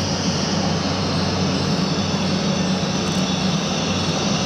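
Hokuriku Shinkansen train pulling slowly into the station platform: a steady low hum and rumble.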